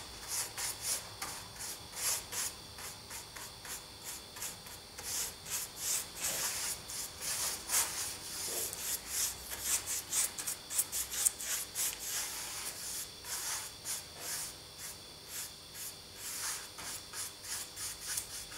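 A paintbrush scrubbing weathering powder into a black-painted model roof panel: a steady run of short, hissy back-and-forth strokes, several a second.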